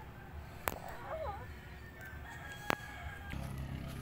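Rooster crowing, with two sharp clicks standing out above it.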